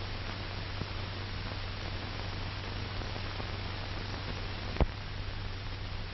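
Steady hiss and low hum of an old optical film soundtrack, with a single sharp pop near the end at a splice.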